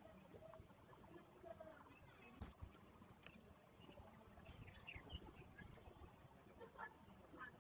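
Near silence: room tone with a steady high-pitched whine, a few faint scattered sounds, and one sharp click about two and a half seconds in.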